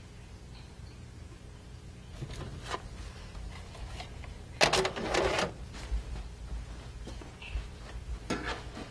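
Wooden cabinet door being opened and an album pulled out from inside: a few light knocks and clicks, then a louder burst of knocking and scraping about halfway through, and another short clatter near the end.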